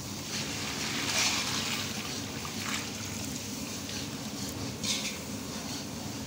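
Sugar syrup bubbling in an iron wok as a thick fruit paste of ground dried apricot, dried plum and tamarind is added and stirred in with a spatula, giving a few brief sloshing noises over a steady low hum.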